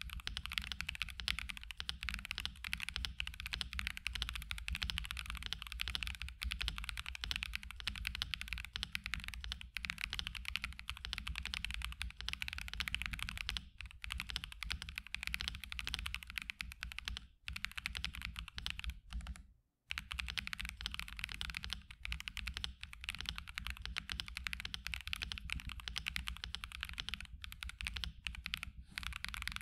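Continuous typing on a mechanical keyboard fitted with Akko V3 Cream Black Pro linear switches, an FR4 plate, and plate and case foam: a fast, steady stream of deeper, clacky keystrokes. The keystrokes break off for a moment about two-thirds of the way through.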